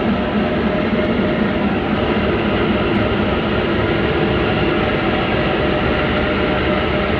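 Diesel locomotive running steadily, heard from inside its cab while standing, a constant dense mechanical noise with a faint steady hum.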